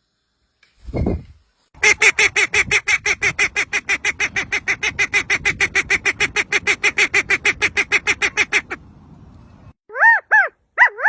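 A bird calling in a long, rapid, even run of harsh notes, about six or seven a second, lasting some seven seconds. Near the end come a few short calls that rise and fall in pitch. A short low thump comes before the run, about a second in.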